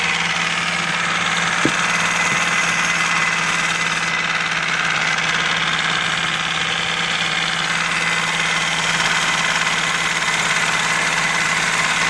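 Lehr 5 hp propane-fuelled four-stroke outboard engine running steadily, smooth and quiet for a four-stroke, with one light tap about one and a half seconds in.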